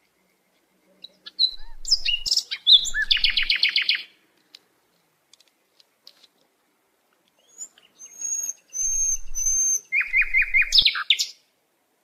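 Common chaffinch singing: two songs, each a quick run of repeated notes ending in a short flourish, the first about a second and a half in and the second near the end.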